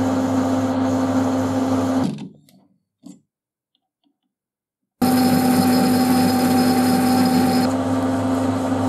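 Metal lathe running with a steady hum while a boring bar cuts the bore of a round metal part. About two seconds in, the spindle winds down to silence, broken by one faint click; about five seconds in, the lathe is running again, starting abruptly.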